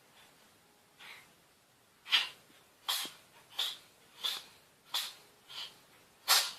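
A cat sneezing in a rapid fit: a faint one about a second in, then about seven sharp sneezes, one every two-thirds of a second or so.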